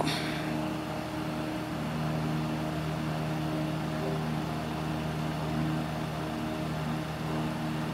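Steady low mechanical hum, with a few faint pitched tones over it, holding level throughout.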